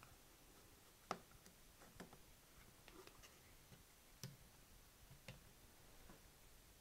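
Faint clicks and light taps from handling the tape recorder's small round speaker and setting it into place on the circuit board, about six in all, the sharpest about a second in and another a little past the middle.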